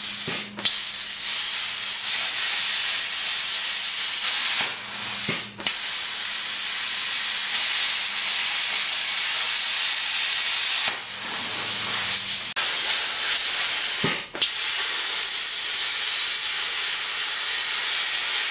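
Plasma cutter cutting through a steel leaf spring pad on an axle tube: a loud, steady hiss of the air-plasma arc. It breaks off briefly several times as the torch stops and restarts.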